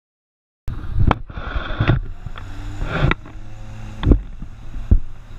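Outboard motor of a small Craig Cat catamaran running hard as the boat speeds away, with water rushing and spraying from its wake. It starts suddenly about a second in, and several heavy thumps stand out above it.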